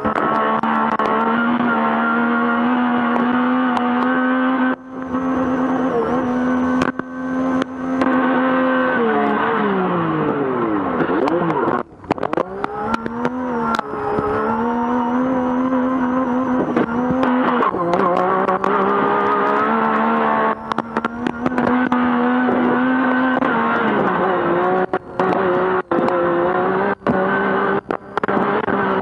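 Yamaha YXZ1000R race side-by-side's three-cylinder engine running hard at high revs, heard from inside the cockpit. About ten seconds in the revs fall steeply and climb back, with shorter dips later, and frequent knocks and rattles break through as the car runs over the sand.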